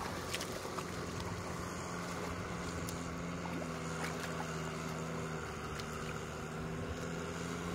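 An engine running steadily at a constant low hum in the background, with a few faint wet slaps as hands dig and pat in watery mud.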